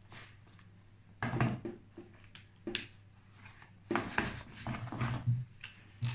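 Handling noises: a coiled plastic air hose and its metal screw fitting rattling and clicking in the hands in several short bursts, as the hose is fitted to a car air compressor that is not running.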